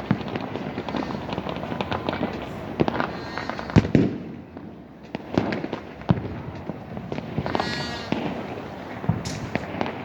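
New Year fireworks going off all around: a continuous crackle of firecrackers and shells, with many sharp overlapping bangs, the loudest about four seconds in.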